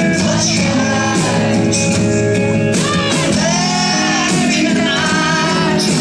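Rock band playing: a sung vocal line over electric guitars.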